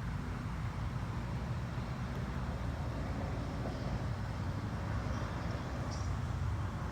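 Steady low rumble of outdoor background noise, with a few faint high chirps near the end.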